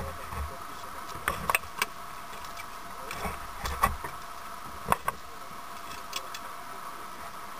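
A handful of sharp knocks and clicks from gear being handled aboard a small inflatable boat, over a steady hum.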